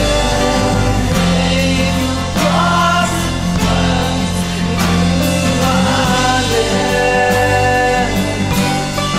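Lo-fi folk song: singing over instrumental accompaniment, with steady low notes underneath.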